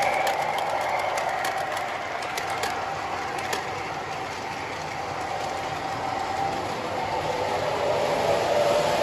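MTH model subway trains running on the track: a steady running sound with a faint motor hum, and sharp wheel clicks over the rail joints in the first few seconds. It fades a little around the middle and grows again near the end.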